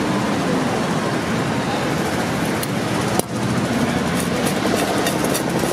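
Steady roadside traffic noise. From about four seconds in, a quick, uneven run of light ticks as puffed rice and peanuts are tossed in a steel bowl.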